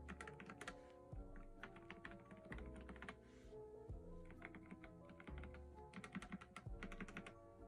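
Typing on a Dustsilver K61 60% mechanical keyboard fitted with a mix of red switches and unlubed Akko Haze Pink silent switches, a switch sound comparison. The keystrokes come in about five short runs, with soft background music underneath.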